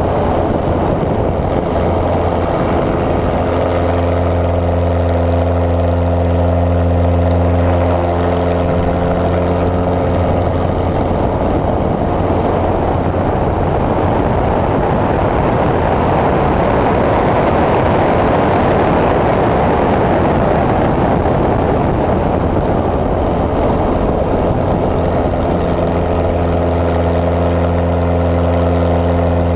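Pitts S-1S aerobatic biplane's engine and propeller running, heard close up from a wing-mounted camera, with a steady low drone. About ten seconds in, the engine note sinks under a swelling rush of air. It comes back clearly about twenty-five seconds in.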